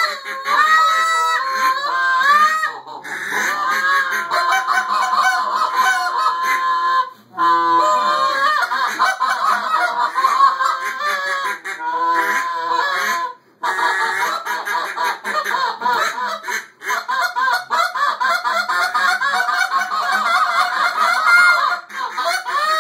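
Several hand-blown goose and duck calls sounded together, a dense run of overlapping honks with a few brief breaks.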